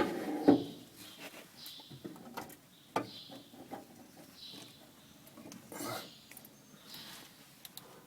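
Sharp metallic knocks and clinks of parts being handled, loudest near the start, about half a second in and again about three seconds in. A bird chirps in the background about every second.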